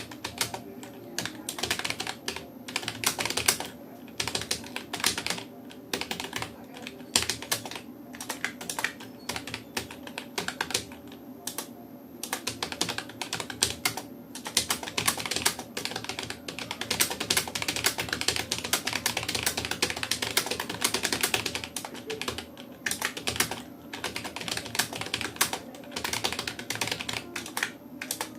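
Fast touch typing on a Rapoo computer keyboard: rapid runs of key clicks broken by brief pauses of a second or so.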